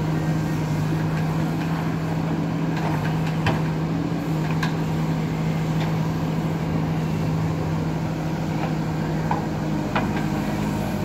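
JCB digger's diesel engine running steadily, with a few short sharp clinks around the middle and near the end.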